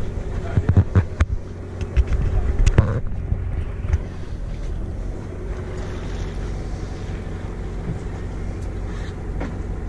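A boat's motor running steadily at low speed, a low rumble with wind buffeting the microphone. A few sharp knocks in the first three seconds.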